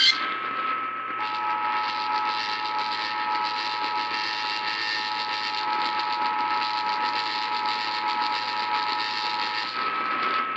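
Emergency Alert System attention signal: a steady two-tone beep (about 853 and 960 Hz) that starts about a second in and lasts about eight and a half seconds. It is heard over the hiss of an AM radio broadcast with a fainter steady higher whistle. It signals that an emergency alert message, here a severe thunderstorm warning, is about to be broadcast.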